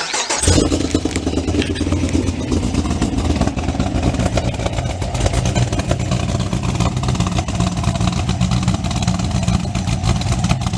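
Pontiac GTO's LS V8, freshly fitted with CNC-ported Trick Flow 225 heads, catching about half a second in and settling into a steady, deep idle through its catless mid-pipes and Borla mufflers. It is running on an untuned first start and needs a tune.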